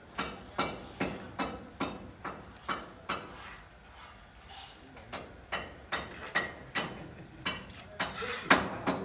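Hammering: a steady run of sharp knocks, about two and a half a second, that pauses briefly in the middle and ends with one louder blow.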